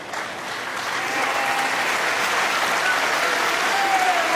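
Snooker audience applauding, swelling over the first second and then holding steady.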